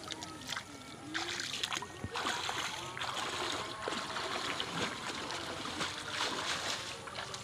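Muddy water sloshing and splashing irregularly as someone wades through a shallow ditch and sweeps a hand scoop net through it to catch fish.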